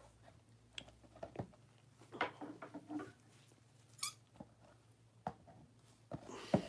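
Faint handling sounds of a cellophane-wrapped cardboard trading-card box: scattered light taps and crinkles of the plastic wrap, with a sharp click about four seconds in and a louder rustle near the end.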